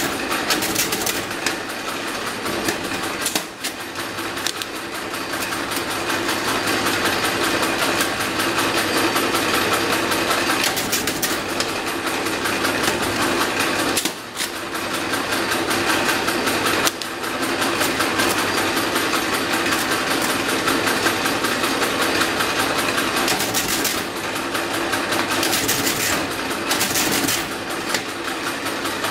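Antique hand-cranked double-carriage mechanical calculator being cranked quickly and continuously for repeated-addition multiplication, giving a steady rattling clatter of gears and carriage. It pauses briefly about 3.5 and 14 seconds in, and again near 17 seconds.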